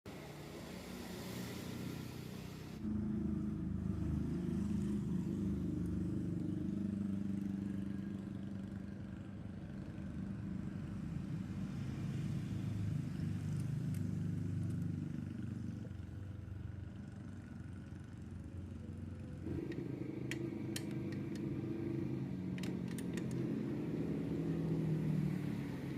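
A motor vehicle engine running nearby, a low uneven rumble that shifts abruptly about three seconds in and again near twenty seconds. A few light clicks come a little after the second shift.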